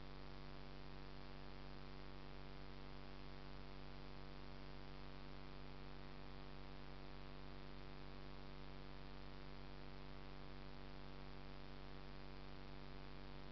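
Steady electrical hum under a constant hiss.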